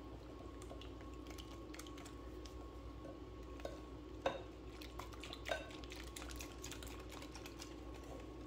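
Wire balloon whisk beating a liquid egg, milk and sweetened condensed milk mixture in a glass mixing bowl: quiet, quick ticking of the wires against the glass, with a sharper clink a little past four seconds in and another about a second later.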